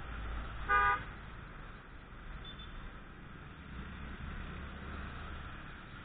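A vehicle horn toots once, briefly, just under a second in. Under it is the steady hum of a motorcycle engine and road noise while riding in traffic.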